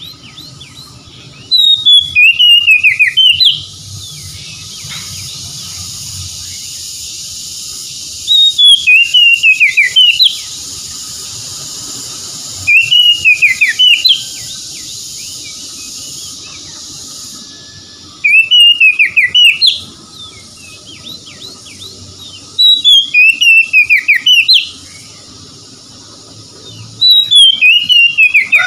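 Oriental magpie-robin singing loud whistled phrases, each about two seconds long, repeated six times with short pauses between. A steady high hiss fills the gaps.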